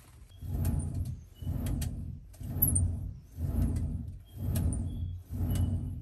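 Hand-worked clay bellows pumping air into a charcoal-fired brick iron-smelting furnace: six strokes about one a second, each a rush of air that stokes the fire.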